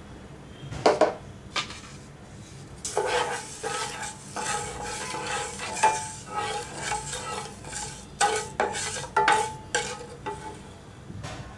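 A wooden spatula stirs sugar into milk in a metal saucepan, scraping and knocking against the pan. There are a few separate knocks at first, then quick, steady stirring strokes from about three seconds in until near the end.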